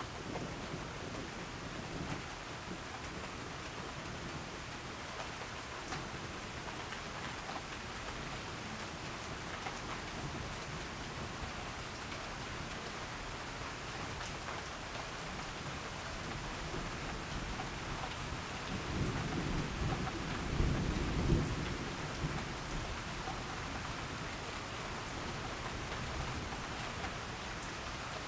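Steady rain falling, with a low rumble of thunder that swells and fades about two-thirds of the way through.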